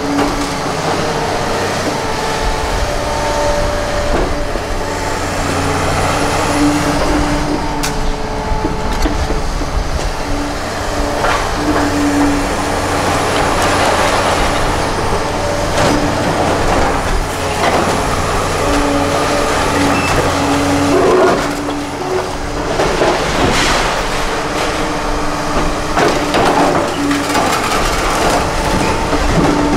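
Liebherr 946 excavator working during a house demolition: its engine and hydraulics run steadily under load, with held whining tones that shift in pitch, broken by intermittent crashes and cracks of breaking building debris.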